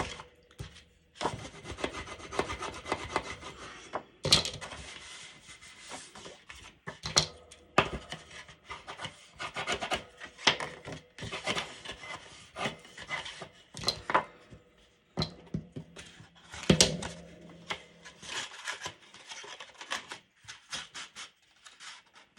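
Hands rubbing and pressing glued cardstock against a desk: stop-start scraping strokes broken by several sharp taps as the paper is pressed and knocked together.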